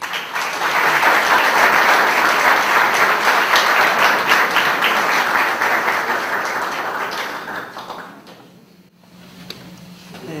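Audience applauding, dying away after about eight seconds.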